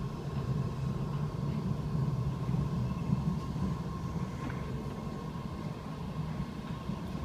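MBTA Red Line subway train in the underground station, a steady low rumble with a faint steady high hum over it.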